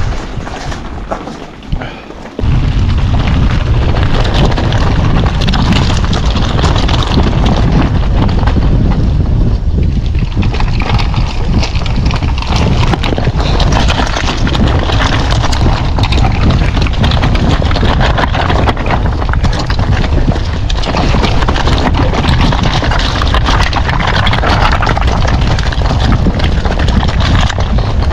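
Strong wind buffeting the microphone: a loud, steady low rumble that cuts in abruptly about two seconds in and keeps on.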